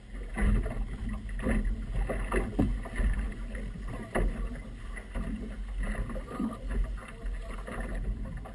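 Choppy river water lapping and slapping unevenly against the hull of a small outboard motorboat, over a steady low rumble.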